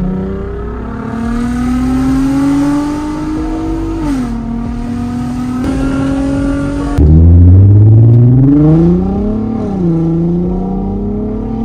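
Volkswagen Golf R32's VR6 engine accelerating, heard from inside the cabin: its pitch climbs and drops back at an upshift. About seven seconds in, a louder pull starts abruptly, climbs steeply and drops again at another gear change.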